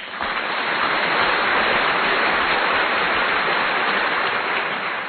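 Steady rushing noise, like running water or rain, that starts abruptly.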